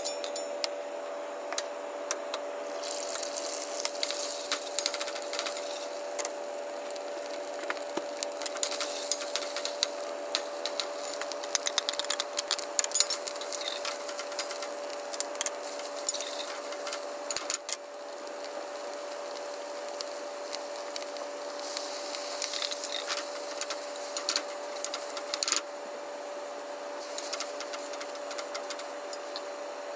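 Zucchini and egg sizzling in a wok while a spatula scrapes and knocks against the pan in a stir-fry, with a steady hum underneath. The sizzle comes and goes in stretches.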